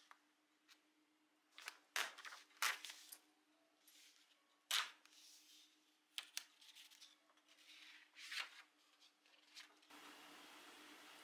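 Paper rustling and crackling as a wall calendar's page is lifted and turned over, several sharp crackles a second or two apart, then lighter rustles, over a faint steady hum.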